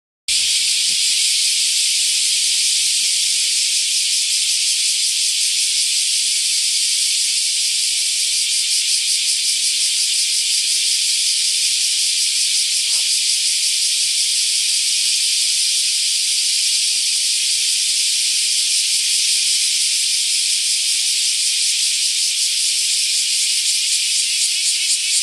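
Cicada singing: a loud, steady, high-pitched sizzling buzz that turns into a fast, even pulsing near the end.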